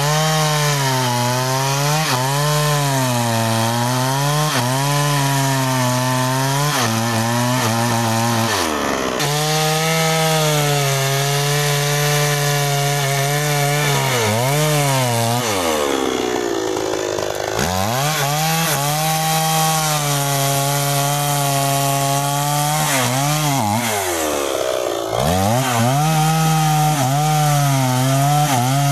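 New West 628 two-stroke chainsaw cutting through a sengon log, the engine at full throttle with its pitch sagging and recovering as the chain bites into the wood. Three times the revs drop off, once nearly to idle, and then climb back up into the next cut.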